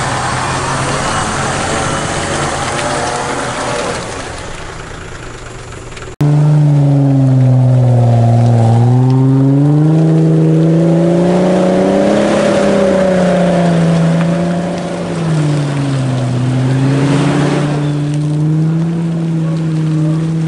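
An off-road 4x4's engine labouring through deep mud, its pitch rising and falling slowly as the throttle is worked. It comes in loud and suddenly about six seconds in, after a quieter stretch of rougher engine noise that fades away.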